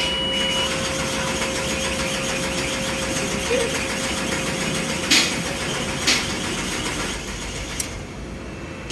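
Ford Explorer engine cranking on the starter without catching, then stopping near the end. It still won't fire after the refitted fuel tank and fuel pump were filled with petrol.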